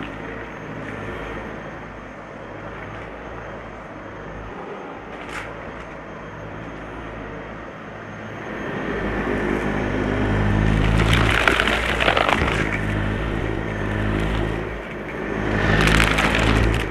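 Dyson Light Ball upright vacuum cleaner running with a steady motor hum that grows louder about halfway, with two loud spells of crunching as it sucks up crunchy debris, one a little past the middle and one near the end.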